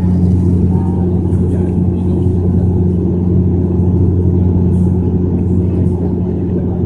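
Cabin drone of a Bombardier Q400 Dash 8's two Pratt & Whitney PW150A turboprops and six-bladed propellers in flight, heard from a window seat: a loud, steady low hum that holds even throughout.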